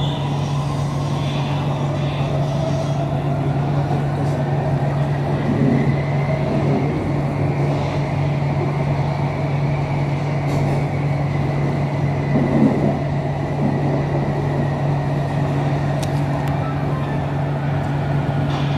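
Electric Skytrain carriage heard from inside while running on the elevated track: a steady low hum and rolling rumble, with the traction motors' whine rising in pitch over the first several seconds and then holding steady before fading.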